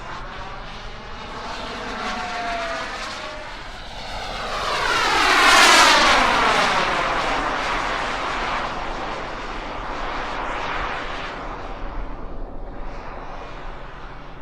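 Radio-controlled turbine jet flying past: the turbine's whine and rush swell to a loud peak about six seconds in, falling in pitch as it goes by, then fade as it flies away.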